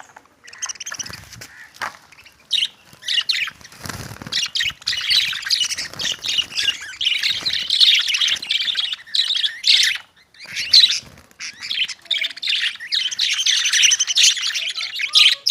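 Many caged lovebirds chirping and chattering over one another in a dense, high-pitched twitter, with a brief lull about ten seconds in. A dull knock comes about four seconds in.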